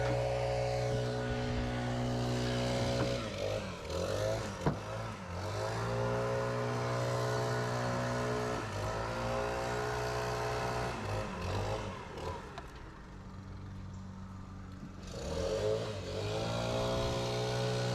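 An engine running at a steady speed, its pitch dropping and picking back up about four times, with a quieter lull a little before the end.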